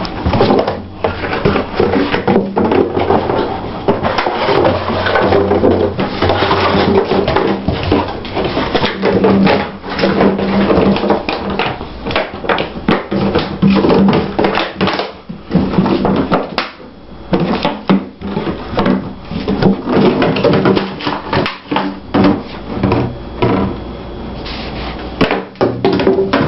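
Music playing throughout, with an empty plastic bottle repeatedly knocking and crackling on a vinyl floor as a puppy bats and chews it.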